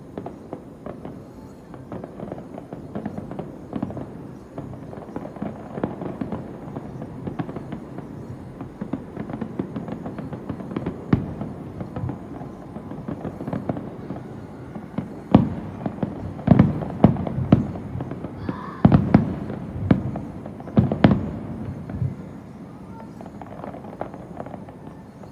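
Fireworks display: a continuous run of crackling bursts and sharp booms. A flurry of the loudest booms comes close together past the middle, then the bursts die down near the end.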